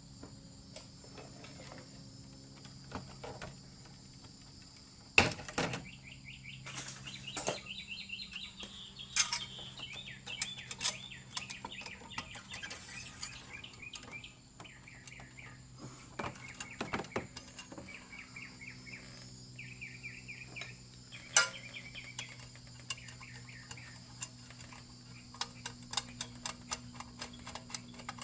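Clicks and knocks of a metal electrical back box and cable being handled and fitted against house siding, the two sharpest knocks about five seconds in and just past twenty, with a quick run of clicks near the end. A bird chirps over and over in short notes through the middle, over a steady low hum.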